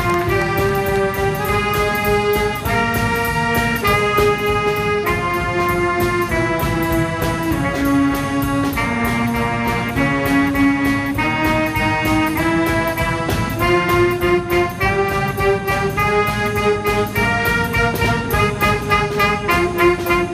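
Brass band music: a melody of held notes, each about a second long, over a steady percussion beat.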